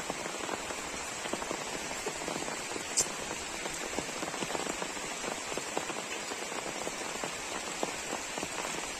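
Steady rain falling on open water, a dense patter of drops striking the surface. One sharp tick stands out about three seconds in.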